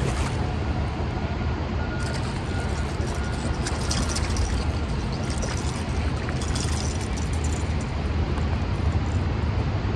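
A hooked bass splashing and thrashing at the water's surface as it is played in, with crackly splashes for several seconds in the middle. A steady low rumble runs underneath.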